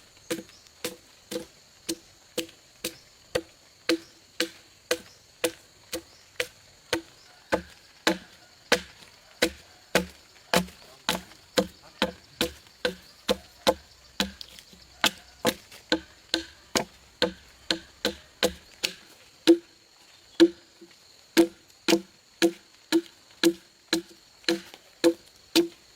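Steady, evenly paced chopping strokes of a hand tool into wood, about one and a half to two strikes a second, each blow a sharp knock with a short hollow ring.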